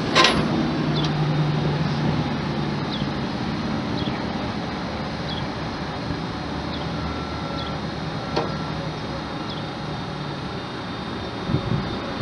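UpRight TM12 vertical mast lift raising its platform, its battery-powered hydraulic pump running steadily, with a sharp click as the lift starts.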